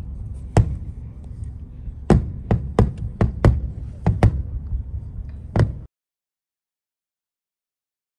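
Aerial fireworks bursting: a string of sharp bangs over a low rumble, about nine in five seconds. The sound then cuts out completely near the end.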